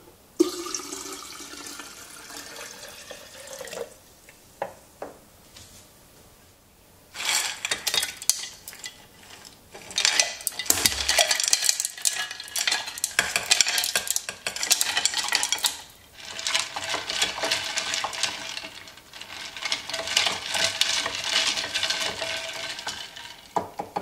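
Water poured into a glass pitcher, then ice cubes tumbling and clattering in. Near the end, a wooden spoon stirs the ice, which clinks against the glass.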